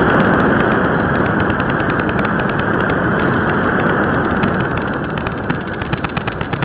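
Rushing airflow and airframe noise picked up by a cheap keychain camera's microphone on board a model electric glider in flight, with dense crackling clicks that thicken and turn choppier near the end.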